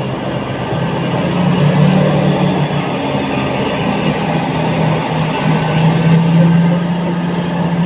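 Large diesel engine of heavy mining machinery running under load: a steady low drone that swells a little about two seconds in and again around six seconds.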